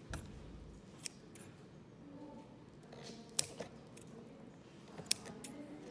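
Metal scissors snipping through rose petals: several short, sharp snips, the loudest about halfway through and again near the end.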